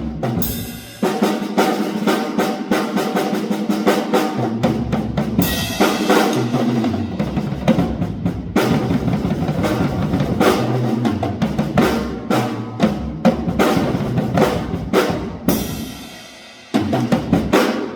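Solo drum kit playing fast, dense patterns on bass drum, snare and toms, with several cymbal crashes, then a final burst of hits that stops sharply at the end of the piece.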